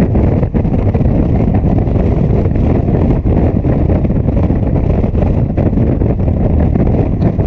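Yamaha FJ-09 motorcycle riding at road speed, heard mostly as a steady rush of wind on the microphone.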